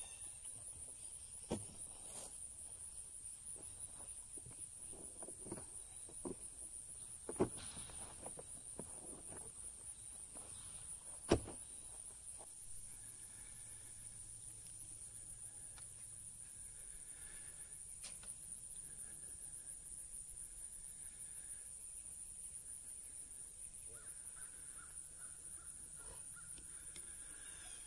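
Quiet outdoor ambience: a steady high-pitched hum throughout, with a few sharp knocks in the first half, the loudest about eleven seconds in.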